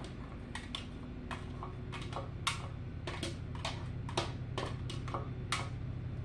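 Irregular light clicks and taps, two or three a second, as diced onion is emptied into a crockpot, over a steady low hum.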